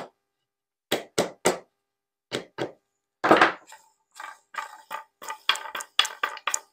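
Wooden ring being tapped down a wooden flagpole dowel with a chisel used as a hammer: a few quick sharp taps, then a heavier knock about three seconds in, followed by a run of lighter, irregular clicks and knocks.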